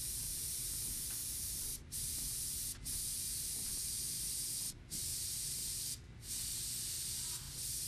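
Gravity-feed airbrush hissing steadily as it sprays, the air cutting off briefly four times as the trigger is let up between small spots.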